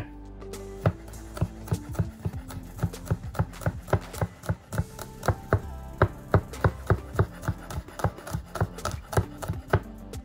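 Santoku knife chopping garlic cloves on a bamboo cutting board: a run of quick, even knocks of the blade on the board, about three a second, beginning about a second in.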